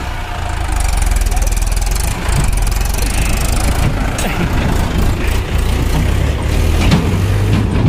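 Swaraj 843 XM tractor's three-cylinder diesel engine running steadily with a low rumble, a little louder from about a second in.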